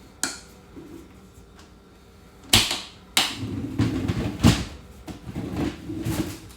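Household handling noise: a sharp click, then a second one followed by a few seconds of irregular knocks and clatter, with one loud thump in the middle, typical of a cupboard or door and things being put away.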